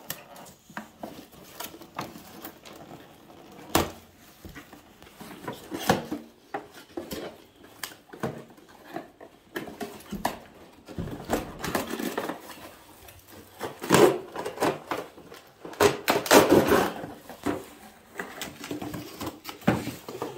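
A cardboard toy box being opened and handled: flaps pulled, cardboard scraping and rustling, and clicks and knocks from the plastic car-carrier toy inside. The scraping is loudest in a few bursts around the middle.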